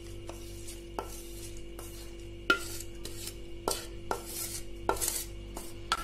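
Spoon scraping and knocking against a stainless steel pan as cooled oil and crisp fried herbs are scraped out into a strainer: a string of sharp clinks, the loudest about two and a half seconds in, over a faint steady hum.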